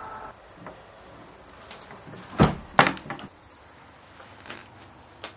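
Two sharp knocks about half a second apart a little before the middle, followed by a few lighter clicks and taps. A faint steady high-pitched whine stops just after the knocks.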